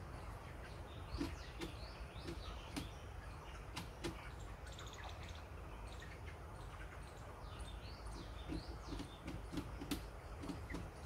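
A flock of young broiler chickens cheeping over and over in short high chirps, mixed with soft low clucks. A few sharp clicks stand out, with a steady low rumble of the shed underneath.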